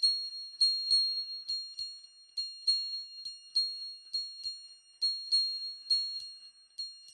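Very high-pitched bell-like chime notes struck about three times a second, every note on the same pitch. Each rings briefly and fades before the next.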